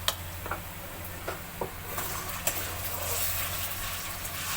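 A spoon knocks and scrapes against the cooking pan a few times while ginger paste and cumin fry in hot oil. From about halfway the sizzling grows louder.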